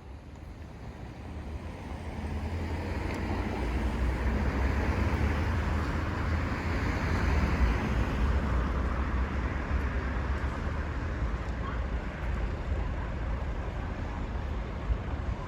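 A vehicle passing close by: a noisy rumble that builds over a few seconds, is loudest around the middle, then slowly eases, with a deep rumble of wind on the microphone throughout.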